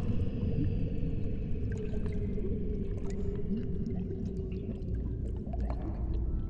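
Legs wading through knee-deep swamp water, sloshing and splashing, over a low sustained droning tone.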